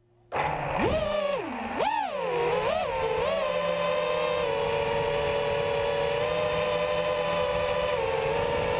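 FPV racing quadcopter's brushless motors whining: the pitch swings up and down with a few throttle punches, then settles into a steady high whine.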